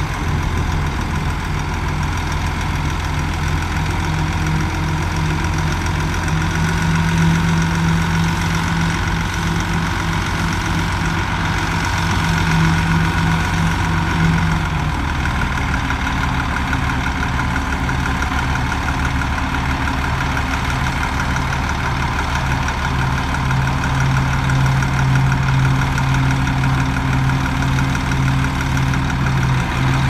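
Heavy diesel engines of a dump truck and bulldozer running steadily with a deep, pitched hum; the engine note changes about halfway through as the truck's bed is raised to tip its load.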